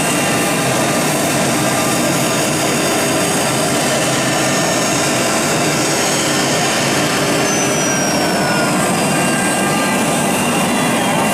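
CNC wood router's spindle cutting a groove into a wooden door panel: a steady high whine over the rasp of the bit in the wood. A thin tone falls in pitch over the last few seconds.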